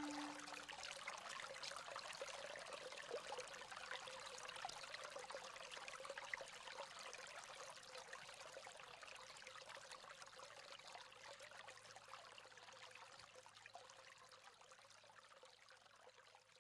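Faint flowing-water ambience like a trickling stream, fading out slowly.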